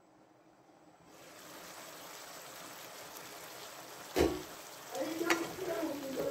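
Diced vegetables simmering in a little liquid in a frying pan, a steady bubbling hiss. A sharp knock a little after four seconds in as the glass lid comes off, then a wooden spoon starts stirring the vegetables.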